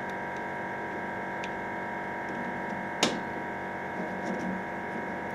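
Steady machine hum with several fixed tones. About three seconds in there is one sharp metallic click as an A/C hose end fitting is pushed into the metal test fixture, and a fainter tick comes earlier.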